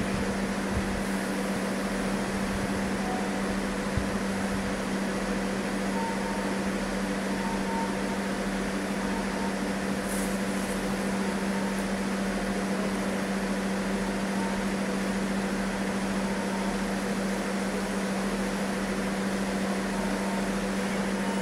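Two coupled NS DM90 diesel multiple units idling at the platform: a steady drone with one strong, constant low hum and fainter steady tones above it.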